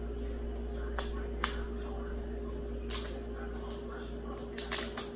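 Scattered sharp clicks and crackles of plastic toy packaging being handled, with a small cluster near the end, over a steady low hum.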